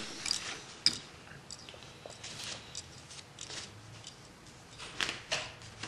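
Quiet handling noises at a fly-tying bench: faint rustling with scattered small clicks and ticks from fingers, materials and tools, one sharper click about a second in and a few more near the end.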